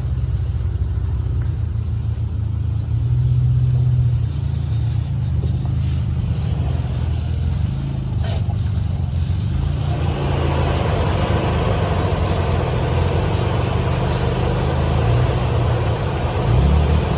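Off-road SUV engine running at low revs as it crawls over an obstacle. A rougher, noisier rush joins about ten seconds in, and there is a short rise in revs near the end.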